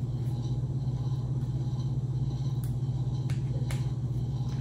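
A steady low hum from a running motor or appliance, with a few light clicks in the second half.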